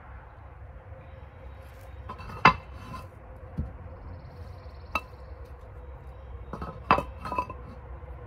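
Concrete pavers and stone blocks knocking and clinking against each other as they are set in place: a sharp ringing knock about two and a half seconds in, a lighter clink near five seconds, and two or three clinks close together near seven seconds.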